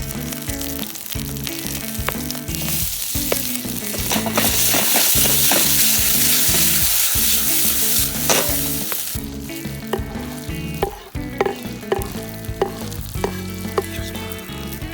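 Food frying in a hot pan over a campfire and being stirred. The sizzle swells to a loud hiss for several seconds in the middle, then eases off, and sharp taps and scrapes of a utensil against the pan follow.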